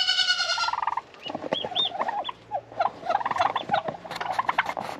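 Turkey hen sitting on a clutch of hatching duck eggs, calling: one longer call at the start, then a run of short calls, mixed with high peeps from newly hatched ducklings.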